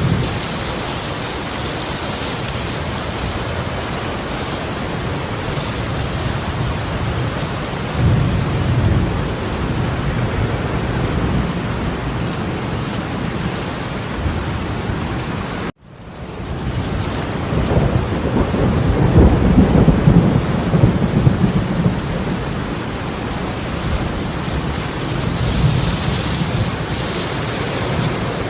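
Torrential rain pouring steadily, with deeper rumbling swells twice. The sound cuts out briefly about halfway through and fades back in.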